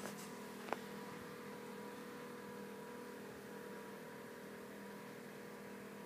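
Faint steady mechanical hum, like an engine or machine running at a distance, with one sharp click under a second in.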